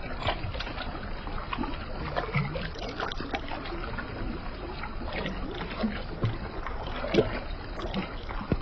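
Light rain pattering in scattered, irregular taps over a low rumble of wind on the microphone.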